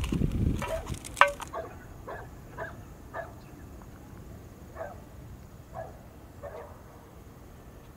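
A sharp click about a second in, then a string of short animal calls, roughly one every half second to a second.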